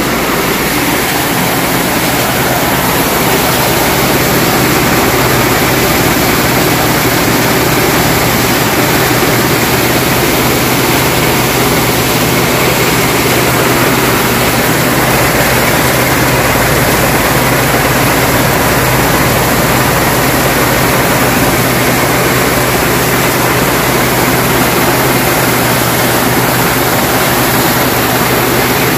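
Feed-mill machinery running steadily: a loud, even rushing noise over a constant low motor hum.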